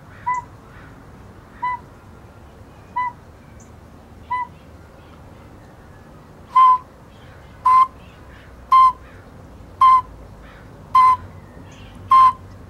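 Northern pygmy owl call played from an iPhone: four soft, evenly spaced single toots. Then, about six and a half seconds in, a handmade ceramic owl whistle blown in imitation: six louder toots at the same pitch, about one a second.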